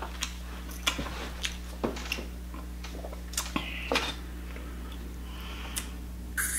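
Eating sounds: scattered soft wet clicks and smacks as lobster meat is chewed and pulled apart by hand in a bowl of sauce, over a steady low hum.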